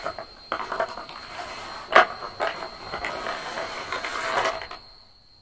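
Plastic Doms brush pens clicking and clattering against each other and rustling on paper as a hand sweeps them up, with a sharp clack about two seconds in. The handling stops a little before five seconds in.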